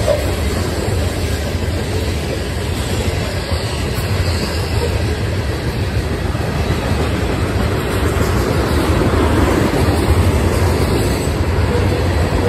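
Florida East Coast freight train's tank cars rolling past close by: a steady, loud rumble of steel wheels on rail.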